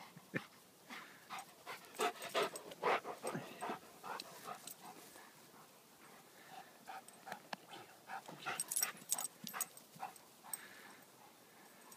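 Two dogs at play over a toy: panting and short dog noises with quick scuffling clicks, busiest in the first few seconds and again in a second flurry about two thirds of the way through.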